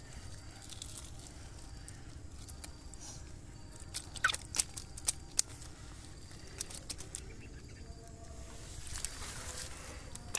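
Hands grabbing an eel in wet mud and leaf litter, with wet squelching and rustling over a steady low rumble. A cluster of sharp clicks comes about four to five and a half seconds in, and a brief rustling burst near the end.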